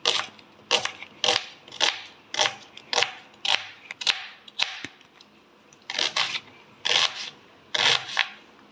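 Kitchen knife slicing through a red onion and knocking on a wooden cutting board, about two cuts a second, with a pause of about a second midway before the slicing resumes.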